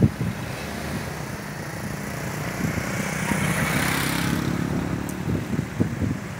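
Cars and a motorcycle driving slowly past in a convoy, engines running with tyre noise on the dirt road. The sound swells as one vehicle passes close, loudest about four seconds in, then fades.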